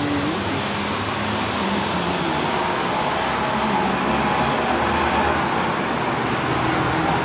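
Steady road traffic noise: a continuous rush of passing vehicles with a faint engine drone underneath.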